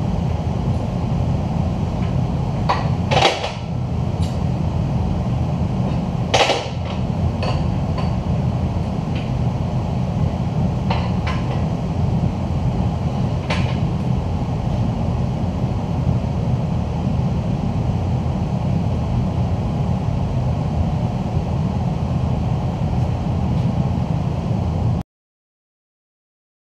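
Hydraulic forging press's power unit running with a steady low drone, with two sharp metallic clanks a few seconds apart early on and a few lighter ticks as steel is handled at the press dies; the sound cuts off abruptly near the end.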